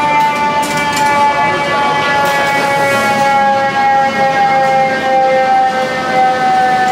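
Roosevelt Island aerial tram's cabin and cable machinery giving a loud, steady whine that falls slowly in pitch as the cabin slows on its approach to the station.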